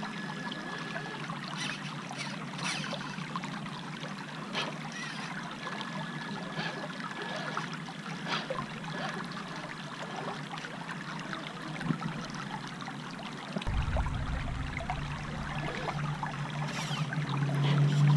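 Shallow creek water running and trickling over rocks, with scattered small clicks. A low rumble comes in about three-quarters of the way through and swells near the end.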